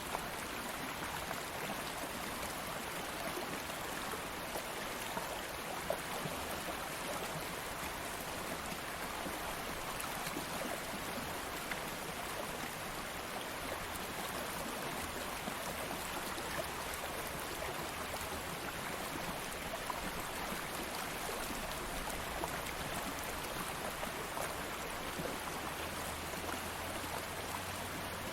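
Stream water flowing steadily over stones, an even rushing with small splashes and trickles.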